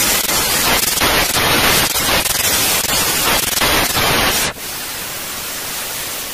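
Television static sound effect: loud crackling, flickering noise for about four and a half seconds, then a steadier, quieter hiss.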